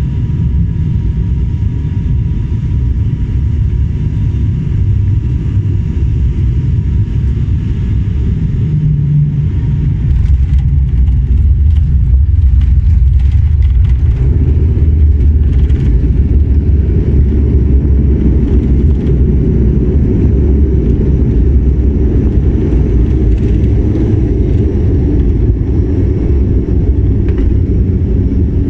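Airliner cabin noise during landing: a steady low rumble of engines and airflow that gets louder about ten seconds in as the aircraft comes onto the runway, then a heavier rumble through the landing roll-out.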